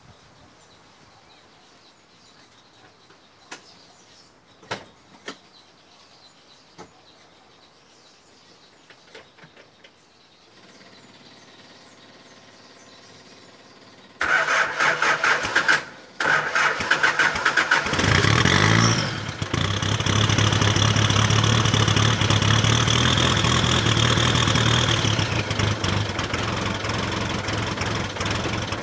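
Nissan TD27 2.7-litre four-cylinder turbodiesel in a Range Rover Classic, cold first start of the day on black diesel. After a quiet stretch with a few faint clicks, the starter cranks it in two bursts. It catches, revs briefly, and settles into a steady, slightly rough idle.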